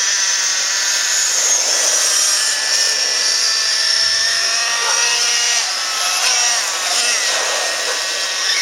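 Radio-controlled off-road cars' electric motors whining, the pitch rising and falling with the throttle.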